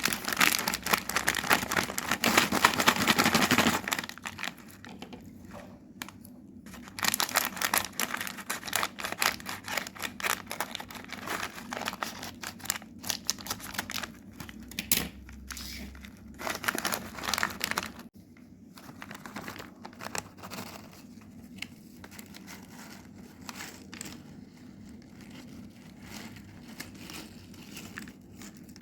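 Chocolate wrapper crinkling and tearing as it is opened. The crinkling is loud and dense for the first four seconds, comes in several shorter bursts after that, and thins to small rustles and clicks over the last ten seconds.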